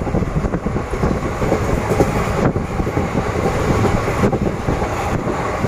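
Passenger train running along the track, heard from on board: a steady rumble with an irregular clatter of the wheels and carriage.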